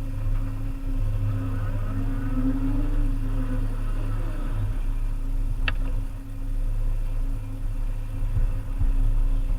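Volvo EC300E excavator's diesel engine running steadily under work, with a wavering hydraulic whine in the first few seconds and a single sharp click a little before six seconds in.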